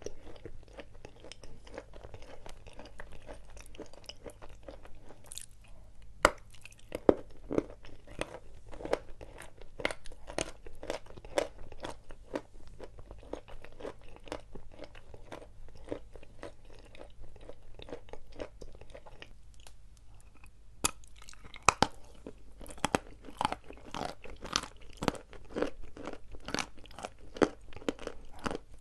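Dry edible chalk being bitten and chewed close to the microphone: a steady run of crisp crunches, broken by a few sharp, louder bites. Two of these come about six and seven seconds in, and two more around twenty-one seconds.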